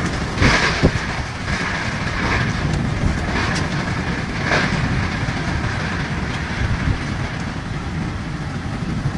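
Violent storm wind with rain, gusting hard and buffeting the microphone in a steady deep rumble, with a couple of sharp knocks about half a second in.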